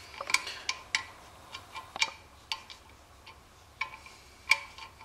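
Irregular light metallic clicks and taps, each with a brief ring, as a sheet-steel squirrel-cage blower wheel is worked by hand on the motor shaft inside its blower housing to center it. The loudest clicks come about a third of a second in, around two seconds in and near the end.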